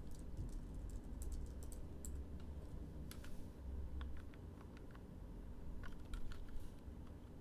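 Computer keyboard typing, close-miked for ASMR: irregular light key clicks in scattered runs over a low steady hum.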